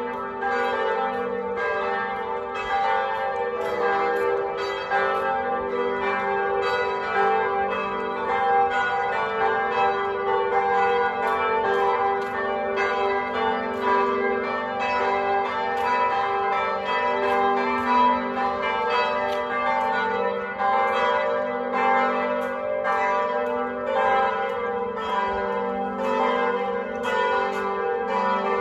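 Several church bells ringing together in a continuous peal, their strokes overlapping irregularly over a sustained low hum from the largest bell.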